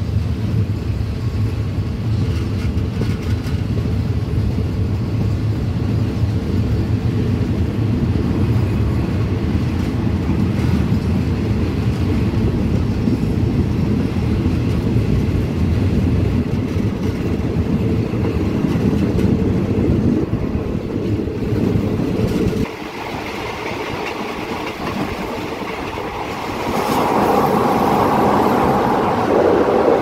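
Passenger train coach running along the track, a steady low rumble of wheels and carriage. About three-quarters of the way through the sound drops away abruptly. A few seconds later it turns into a louder, higher-pitched rattle as the train rolls onto a steel truss bridge.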